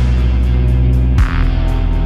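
Background music with deep, held bass notes that move to new notes about a second in.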